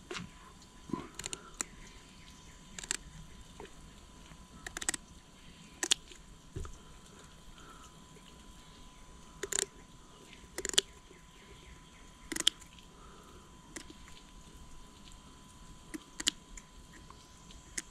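Scissors snipping through the small fin bones around the edge of a large flounder: about a dozen short, crisp snips at uneven intervals, one every second or two.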